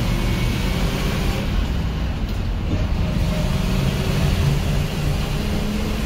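1979 GMC 6000 Blue Bird school bus with a GM 427 big-block V8 running steadily while the bus drives along, heard inside the cab together with road noise.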